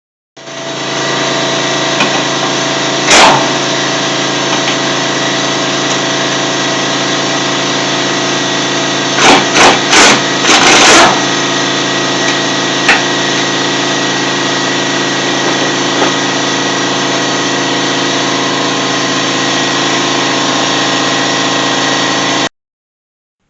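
A motor running with a steady hum that starts and stops abruptly, and sharp knocks about three seconds in and several more around ten to eleven seconds in.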